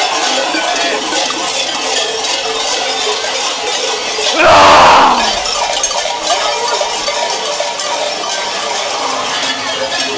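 Large Krampus bells clanging and jangling continuously as the costumed Krampus figures move, with one loud rushing burst of noise lasting under a second about halfway through.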